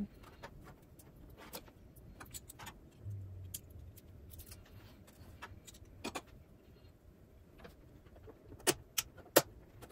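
Hands handling small plastic parts and a clip-on lamp: scattered light clicks and taps, then three sharper clicks in quick succession near the end.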